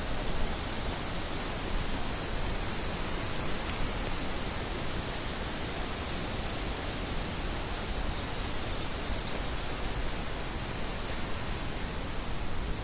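Steady, even rush of strongly running water, such as a stream or small waterfall.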